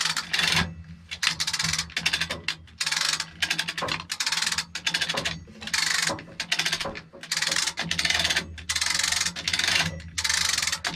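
Hand-lever cable come-along being ratcheted under heavy load, each stroke of the handle a quick run of pawl clicks, about one stroke a second.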